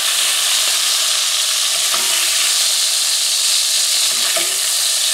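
Hot oil sizzling steadily in a cast-iron pan as browned lamb meatballs are spooned out of it.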